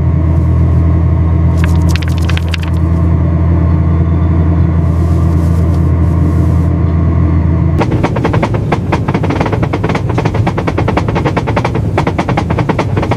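Locomotive running on rails: a steady low rumble, then from about eight seconds in a rapid, dense rattling clatter.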